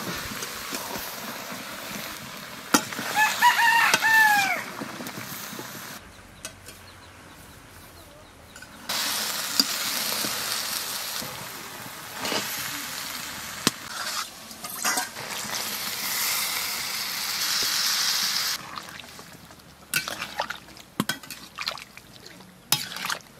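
A rooster crows once, about three seconds in, over the sizzle of a curry frying in a steel karahi on a wood fire. Later the sizzling is louder for several seconds, and near the end a metal spatula clicks and scrapes against the pan.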